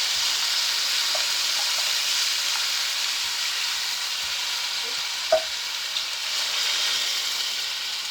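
Chicken and vegetables frying in a hot pan, sizzling steadily, with one sharp knock a little past halfway.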